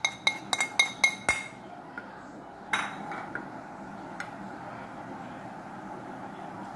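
A metal spoon clinking repeatedly against a dish, about six ringing taps at roughly four a second, as flour is knocked off into a glass dish. One sharper knock follows, then soft stirring of dry flour in the glass dish.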